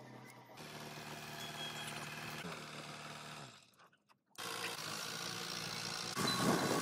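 A truck engine running steadily, fading out about halfway through. After a moment of near silence, a forklift engine is running, and it gets louder near the end.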